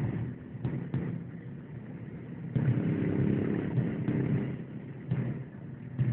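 Traffic heard from inside a slow-moving car: engine and road noise, with small motorcycles riding close around it. A louder motorcycle engine drone comes up about two and a half seconds in and eases off a couple of seconds later, and a few light knocks sound near the start.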